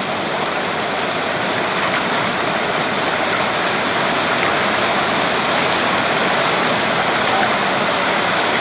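Whitewater river rapids rushing in a loud, steady roar of turbulent water.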